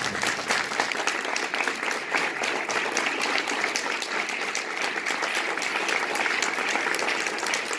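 Audience applauding steadily at the end of a talk: many people clapping together, a dense patter of hand claps.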